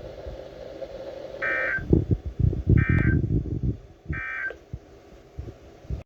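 Three short, buzzy data bursts about 1.3 seconds apart on a NOAA Weather Radio broadcast: the EAS end-of-message code that closes a severe thunderstorm warning. Low rumbling noise runs underneath.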